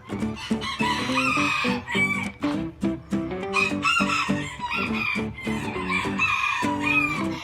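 Rooster crowing several times, each crow a drawn-out call that rises and falls, over background music with short plucked notes.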